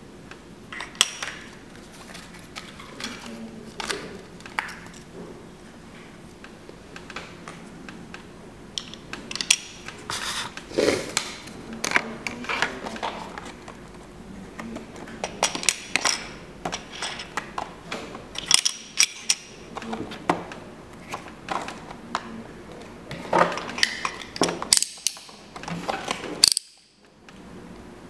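Small plastic model railway containers clicking and clattering as they are handled, taken from their packaging and set down on a wooden table, mixed with the handling of their cardboard boxes. Irregular sharp clicks come in clusters, and the sound cuts out briefly near the end.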